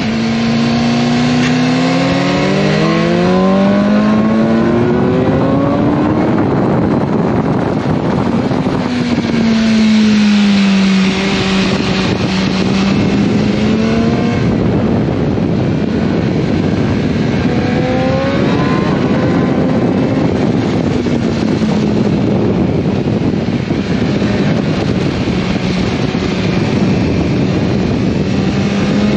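BMW S1000R's inline-four engine heard from onboard at high revs, its pitch climbing several times as the bike accelerates out of corners, over a steady rush of wind noise.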